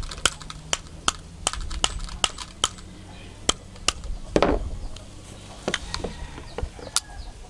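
Steel jaws of a pair of combination pliers clicking shut as the handles are squeezed and released over and over, about two to three sharp metallic clicks a second. A duller handling knock comes a little past halfway, followed by a few more spaced-out clicks.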